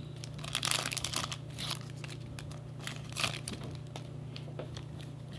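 Foil wrapper of a Magic: The Gathering booster pack crinkling in irregular short bursts as it is handled and opened, over a steady low hum.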